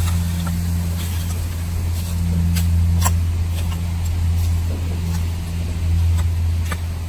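Metal garden rake dragged through loose, dry soil, giving scattered light clicks and scrapes. Under it runs a steady low hum, the loudest sound, from an unseen motor or engine.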